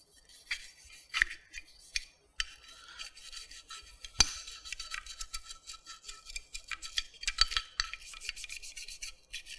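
Stiff cleaning brush scrubbing the inside of an AR-15 upper receiver in quick, scratchy strokes, with a few clicks and one sharp knock about four seconds in.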